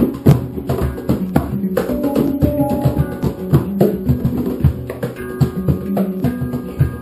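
Handpans played together, struck notes ringing and overlapping in a rhythmic pattern over frequent hand-drum hits.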